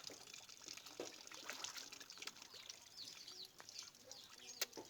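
Faint splashing and trickling of pond water, with scattered small clicks and a few short high chirps.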